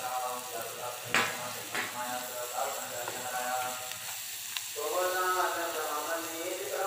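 Capsicum and tomatoes sizzling in a steel kadai while a wooden spatula stirs them, with sharp knocks of the spatula or lid on the pan about a second in and again shortly after, and a lighter click past the middle. A voice carries on in the background throughout.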